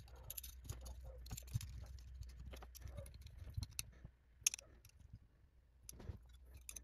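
Faint, scattered clicks and taps of small metal parts being handled: a PCIe Wi-Fi card being fitted to its metal mounting bracket, with brass antenna connectors and washers knocking against it.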